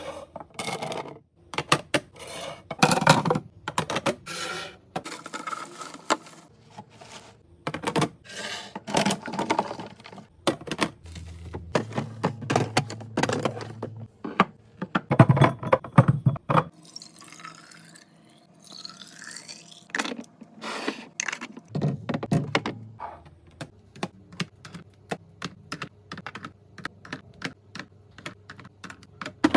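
Rapid clicks, taps and knocks of food packages and plastic containers being handled and set down while a fridge is restocked, with a stretch of rustling about two thirds through.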